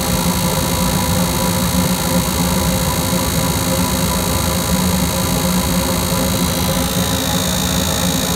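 Goodman GPG packaged gas/electric unit running steadily, its motors giving a constant mechanical drone with several fixed tones.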